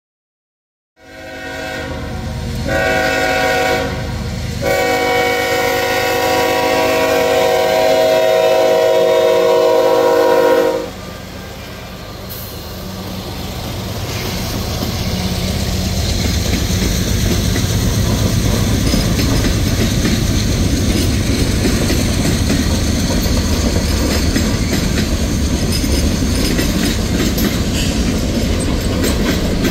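Norfolk Southern diesel freight locomotive's multi-chime horn sounding for a grade crossing: two short blasts, then one held about six seconds, cut off sharply. The locomotives and manifest freight cars then pass close by, a steady rumble of engines and wheels on the rails that grows louder.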